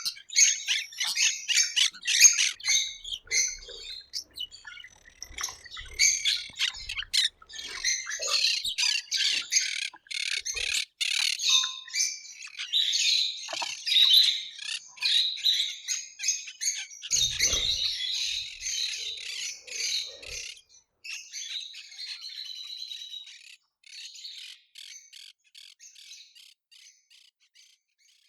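Ambience of many birds chirping and squawking together in a dense, busy chorus that thins out and fades away over the last several seconds.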